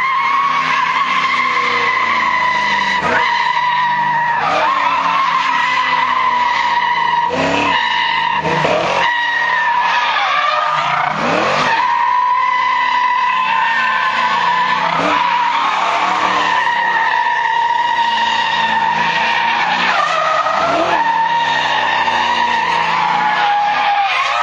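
Car doing a burnout, its tyres squealing in a long, steady, high-pitched note without a break. The engine revs dip and climb again and again underneath.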